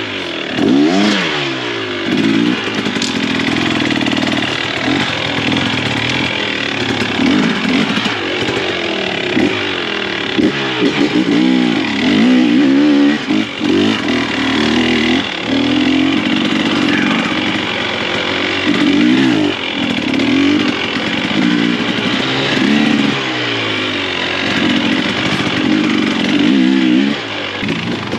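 KTM 300 XC TBI two-stroke dirt bike engine revving up and down again and again as the throttle is worked while riding a muddy woods trail.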